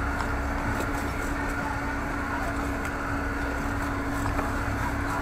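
A road vehicle driving, its engine running steadily with road noise: an even drone with a constant hum.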